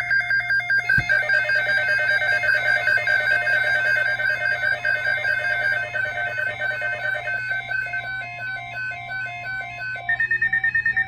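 Weather-alert alarm tones signalling an incoming National Weather Service alert: a rapid, repeating electronic beeping pattern of high tones. About ten seconds in it changes to a faster beep on a single pitch. A click about a second in.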